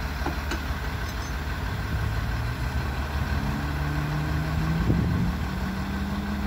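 Tow truck's engine running while its winch pulls a pickup onto the tilted rollback deck; about two seconds in, the engine pitch steps up and holds higher.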